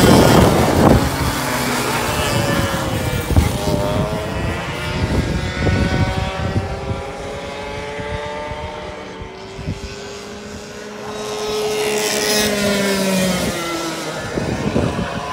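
Two-stroke racing go-kart engines at full song, a kart passing loud with its note dropping at the start, then a high whine from karts further round the track whose pitch rises and falls as they accelerate and brake. The sound swells again a few seconds before the end as karts come back past, their note falling as they go by.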